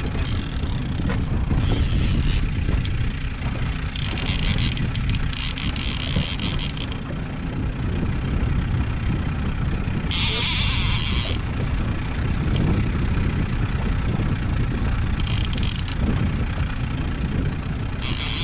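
The 70 hp Mercury outboard on a small fiberglass fishing boat runs with a steady low rumble. Short bursts of high whirring hiss come in four times.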